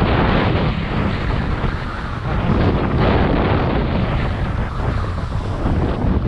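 Wind buffeting the microphone of a skier moving fast downhill, a loud, steady rush with a heavy low rumble, mixed with the skis sliding over the snow.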